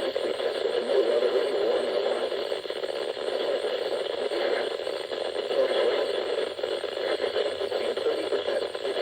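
NOAA weather radio receiver putting out steady static and crackle from a weak, noisy signal, with no clear voice coming through.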